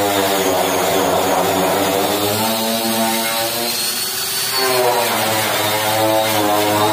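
Electric angle grinder with a sanding disc running against the bare steel of a car bonnet, a steady motor whine whose pitch dips about halfway through and comes back up as the load on the disc changes.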